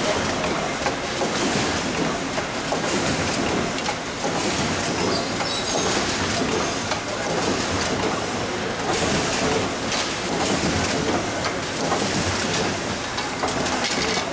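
SZD-106 automatic three-colour UV screen printing machine running, a steady, busy mechanical clatter of many small clicks and knocks.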